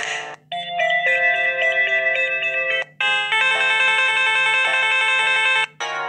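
Samsung Galaxy J2 Core stock ringtones previewed one after another. Each short electronic melody is cut off abruptly when the next one in the list is tapped. Two play for about two and a half seconds each, and another starts near the end.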